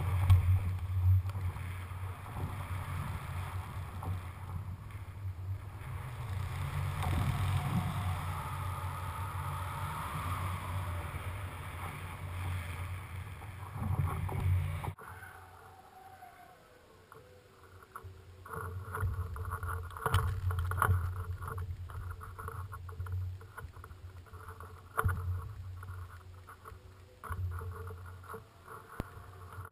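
Muffled wind rushing and buffeting against a high-altitude balloon's payload camera. About halfway through it cuts off abruptly and gives way to a quieter, uneven rustling with scattered knocks.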